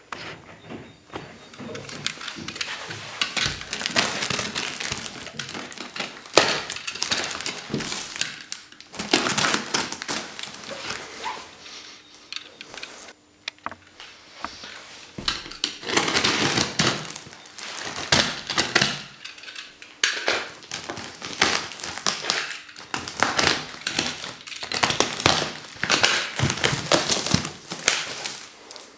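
Plastic wrap and packing tape being torn off a cardboard box and the box pulled open: crinkling, ripping and rustling in irregular bursts with short pauses.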